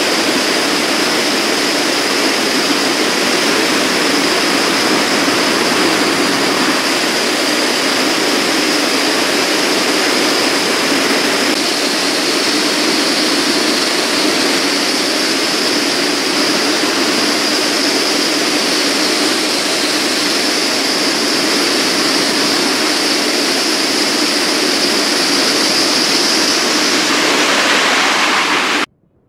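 Jet engine noise, a steady loud rush that cuts off abruptly near the end.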